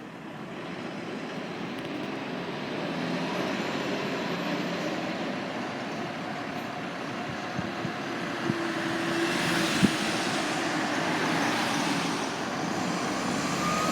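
Fire engine running, with a steady vehicle rumble and a few knocks. Near the end its siren starts to wind up in a rising wail.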